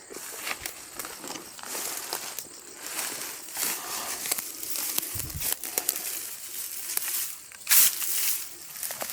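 Irregular rustling and crunching of dry leaves and brush, with the loudest crunch a little before the end.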